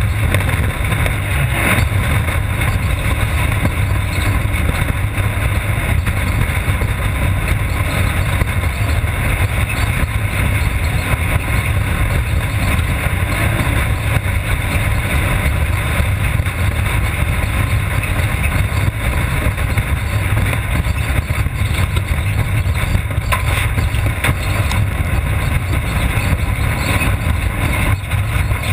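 Off-road race car's engine and drivetrain running steadily while under way, heard from inside the car as a loud, even rumble.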